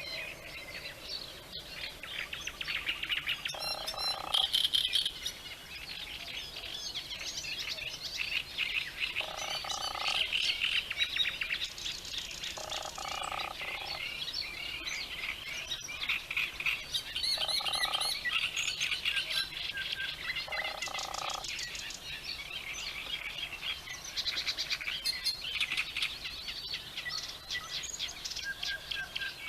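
A dawn-chorus-like mix of songbirds chirping and trilling continuously, with a frog's croaking call sounding about five times, each call lasting about a second.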